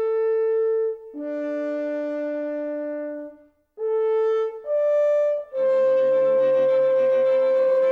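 Background music: a slow melody of long held notes, with a short break midway and a fuller accompaniment coming in under one long note about five and a half seconds in.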